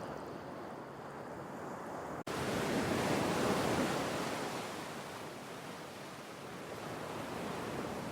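Sea waves washing in and receding, a steady rush that swells louder a few seconds in, ebbs, then builds again near the end. About two seconds in, the sound cuts out for a split second.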